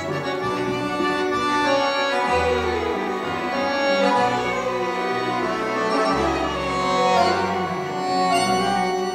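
Live tango ensemble of violin, accordion, double bass and guitar playing a tango vals, with the bass marking a steady repeating pulse under the violin and accordion melody.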